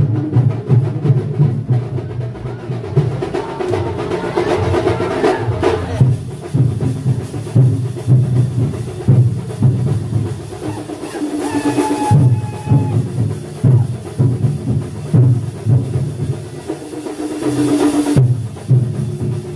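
Loud percussion music with a driving, evenly repeating bass drum beat and lighter drum strokes over it.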